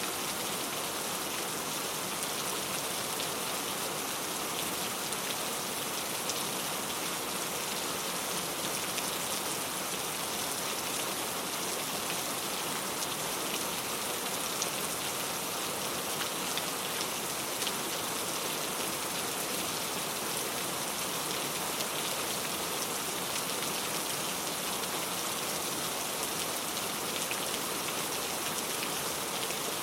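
Steady rain falling and pattering on a surface, with fine drop ticks in an even hiss and no change in intensity.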